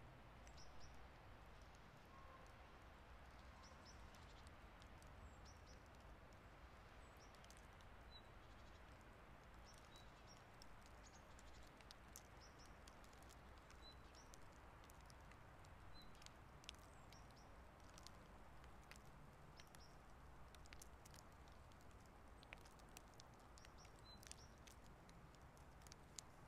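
Faint outdoor ambience in light snowfall: a soft steady hiss with scattered light ticks of snow landing. A few faint short high peeps come through every couple of seconds.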